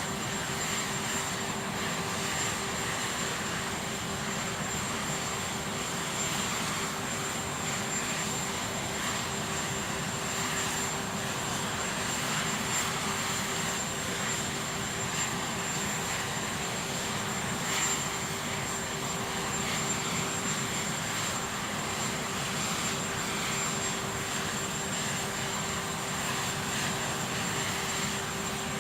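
Aircraft engine noise running steadily: a continuous rushing drone with a constant low hum and a faint high whine, unchanging throughout.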